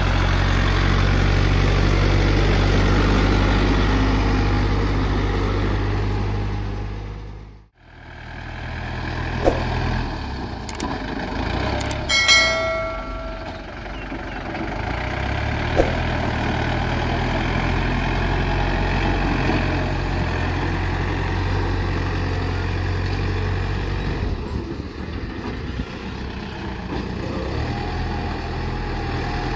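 Yanmar EF453T diesel tractor engine running steadily as the tractor works gravel with its blade; the sound cuts out for a moment about eight seconds in. About twelve seconds in, a short bell-like chime rings out, from a subscribe-button animation, with single clicks a few seconds before and after it.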